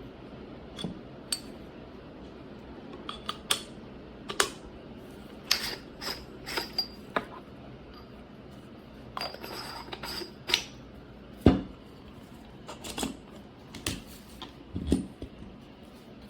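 Small hard items, metal and glass or ceramic, clinking and knocking irregularly as they are handled and set down, with one heavier knock about two thirds of the way through.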